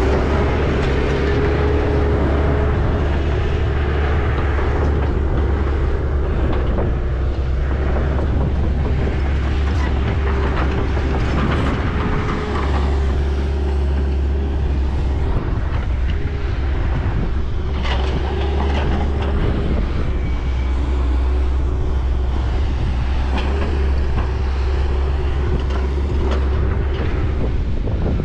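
Heavy construction machine's diesel engine running steadily, a continuous low drone with a steady whine above it and a few light knocks.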